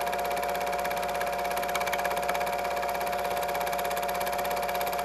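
8mm film projector running: a steady mechanical hum with a fast, even clatter from the film transport.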